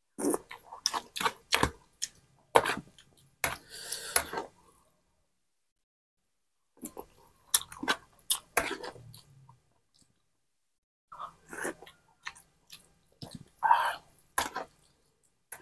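A man chewing mouthfuls of rice and noodles in soup eaten from a spoon, in bursts of wet clicks and smacks with short silent pauses between bites.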